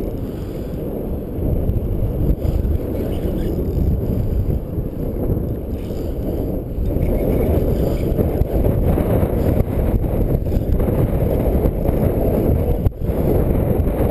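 Wind buffeting a helmet-mounted camera's microphone: a steady low rumble that rises and falls, with a few faint knocks.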